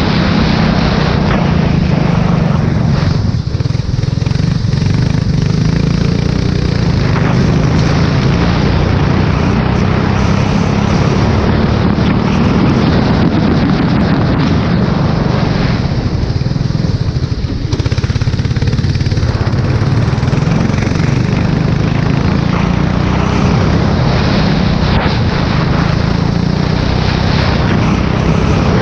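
Formula 4 race car engine running at speed on a wet track, heard close up with heavy wind rushing over the microphone. The engine eases off twice, about four seconds in and again past the middle.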